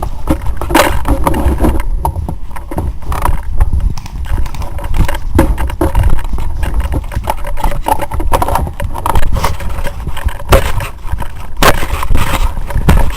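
Movement and handling noise on a gun-mounted camera: irregular scrapes, knocks and footfalls over a steady low rumble on the microphone, with louder knocks about a second in and near the end.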